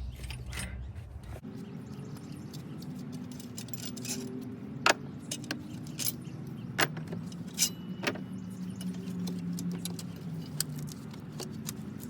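Scattered sharp plastic clicks and small rattles as the alternator's electrical connector is pinched and worked loose, over a steady low hum.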